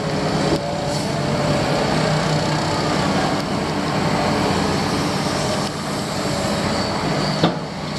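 Diesel engine of an excavator running steadily while it loads a dump truck, with one sharp knock near the end.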